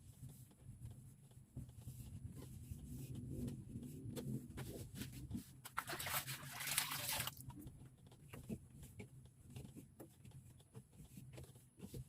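Scattered small clicks and knocks of handling while a refrigerator is being cleaned, over a steady low hum. A rushing hiss lasts about a second and a half a little past the middle.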